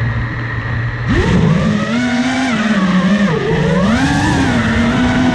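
FPV quadcopter's electric motors, heard through its onboard camera: a steady hum, then about a second in a whine that rises sharply as it takes off and keeps swinging up and down in pitch with the throttle.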